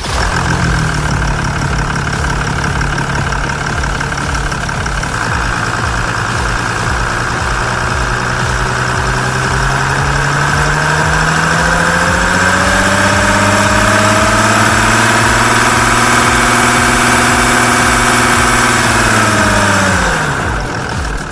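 Mercedes-Benz OM642 3.0-litre V6 turbodiesel running after an oil-burning repair: it settles to a steady idle, its speed creeps slowly up, and near the end it is shut off and winds down.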